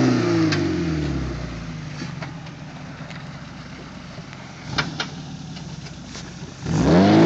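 Suzuki SJ413's 1.3-litre four-cylinder engine on a steep rock climb. The revs fall away over the first second or so, and it runs low and quiet with a couple of sharp knocks about five seconds in. Near the end the revs rise sharply again.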